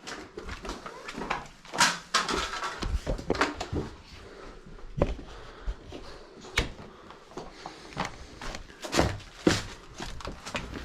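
Irregular knocks, scrapes and crunches of people moving about over debris in a fire-damaged room, several sharper knocks scattered through.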